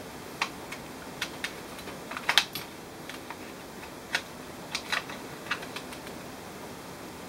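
Scattered small clicks and taps of hands handling the plastic and metal parts of an opened HP G60-230US laptop, with a quick cluster of sharper clicks about two seconds in.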